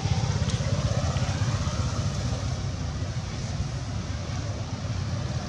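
A motor vehicle's engine running steadily with a low, fluttering rumble.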